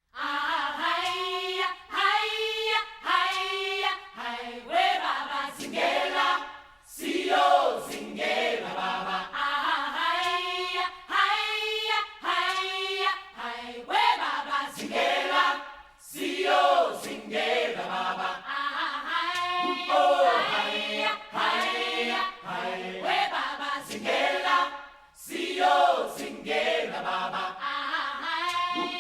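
A choir singing, several voices holding and gliding between sung notes in phrases with short breaks between them.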